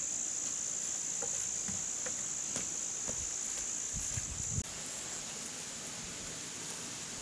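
Steady, high-pitched chorus of insects, which drops away sharply about four and a half seconds in. Scattered light clicks and a few low thumps sound through the first half.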